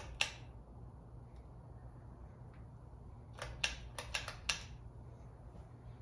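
Ceiling fan motor humming steadily, with one sharp click just after the start and a quick run of about six sharp clicks between three and a half and four and a half seconds in.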